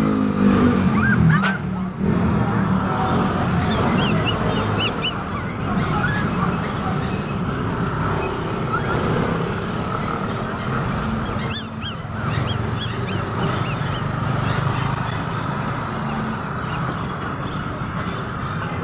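Caged puppies giving short, high-pitched squeaky whines a few times: about a second in, a few seconds in and again around the middle. They sit over a steady din of market and traffic noise.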